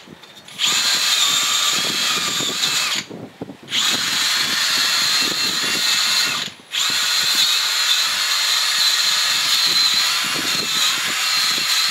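Cordless drill running against a car's wheel hub, cleaning corrosion off the hub face, in three long runs with a steady whine, stopping briefly about three seconds in and again about six and a half seconds in.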